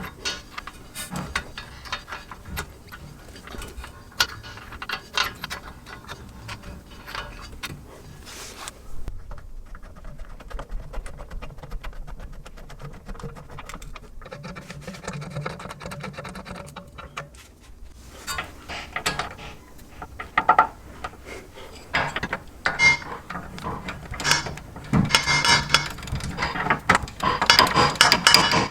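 Hand ratchet clicking in runs as the rear hub assembly's mounting bolts are run in and tightened, with metal tool clatter. The clicking grows fast and dense near the end.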